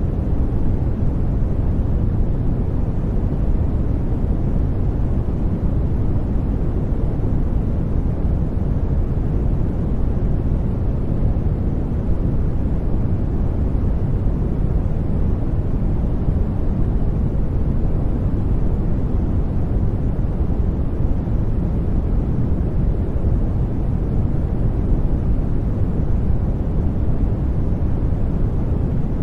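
Brown noise: a steady, deep rushing hiss with most of its weight in the low end, unchanging in level throughout.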